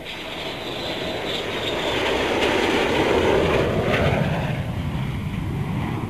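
Eurofighter Typhoon's twin EJ200 turbofan jet engines as the fighter passes low overhead on its approach to land: a jet roar that builds to its loudest about three seconds in, then drops in pitch and fades as the aircraft goes by.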